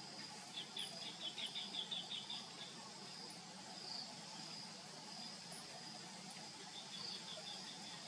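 Steady high insect trilling, like crickets, with a quick run of high chirps a little after the start and a fainter run near the end.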